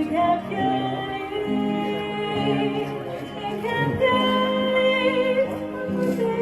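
Music: a voice singing long held notes over guitar.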